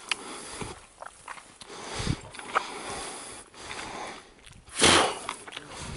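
Dry blackthorn scrub rustling and twigs snapping in scattered sharp clicks as someone pushes through it on foot, with one loud rustle about five seconds in.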